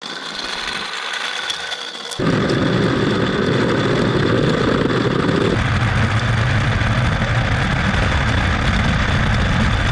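Small 3D-printed RC car with a brushed drill motor and belt drive, heard first from the roadside, then from about two seconds in from a camera riding on the car. Up close it is a loud, dense rumble of the wheels rolling over rough asphalt as the motor runs, with a faint steady high whine.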